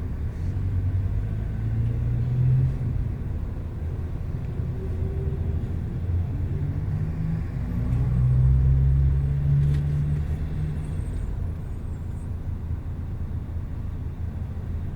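Bus engine and road rumble heard from inside the passenger cabin, a steady low drone. The engine note rises about halfway through and drops back a few seconds later. A single click comes near two-thirds of the way in.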